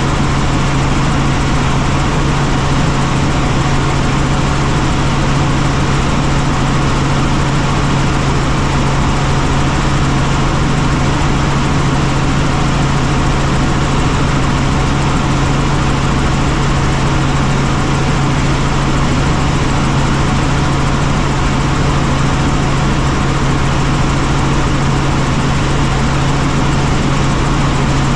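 Helicopter in steady flight: continuous loud engine and rotor noise with a strong, steady low hum beneath it.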